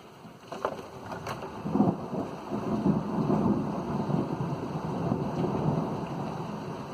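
Thunder rumbling, swelling about a second and a half in and slowly dying away, over steady rain, with a few sharp drip ticks early on.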